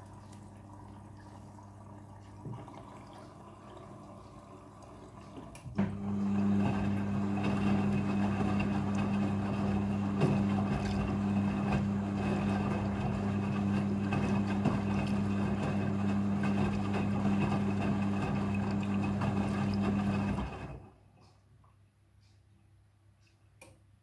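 Midea front-loading washing machine on its second rinse: a low hum, then about six seconds in a much louder steady hum with water rushing and sloshing as the drum turns. It cuts off abruptly a few seconds before the end.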